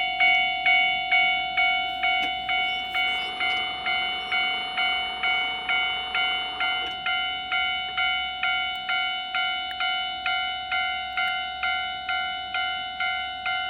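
Japanese railway level-crossing warning bell ringing, an even dinging of a little over two strokes a second, each stroke a chime that fades before the next. For a few seconds in the middle a fainter rushing noise sits underneath.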